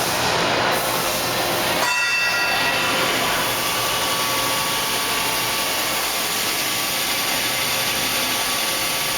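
Fadal VMC5020A CNC machining center's spindle running at speed: a steady whine over an even hiss. The tone shifts about two seconds in as the spindle speed is stepped up.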